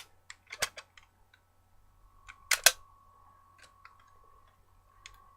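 Plastic clicks and snaps from handling a Power Rangers SPD Morpher toy, with two sharp snaps close together about two and a half seconds in.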